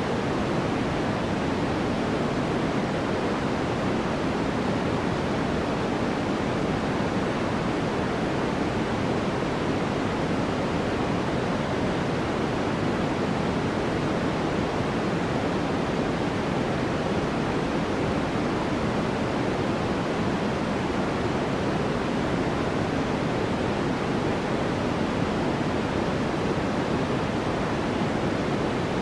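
Steady, unchanging white noise: an even hiss with no rhythm or events, weighted toward the lower and middle pitches.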